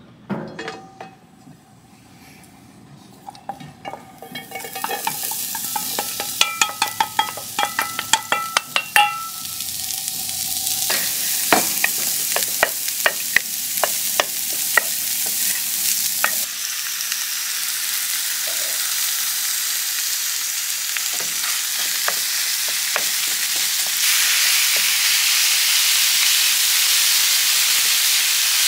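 Food frying in a hot pan: a sizzle starts about five seconds in and builds. Through the first half it comes with quick clicks of a utensil stirring against the pan, then it settles into a steady sizzle that grows louder near the end.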